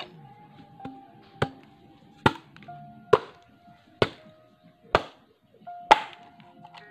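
Machete chopping into a bamboo pole: six sharp strikes a little under a second apart, over soft background music.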